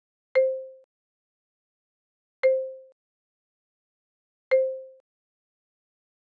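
A short sound effect played three times, about two seconds apart: a sharp click with a brief low tone that fades within half a second. It marks each switch to the next dots flashcard.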